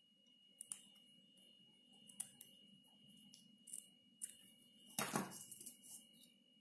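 Scissors snipping a strip of lace: several short, sharp snips, then a louder clatter and rustle about five seconds in as the scissors are put down and the lace is handled.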